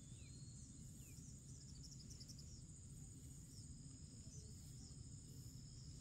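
Near silence in a grassy field: faint, steady high-pitched trilling of insects such as crickets over a low rumble, with a few faint short chirps in the first couple of seconds.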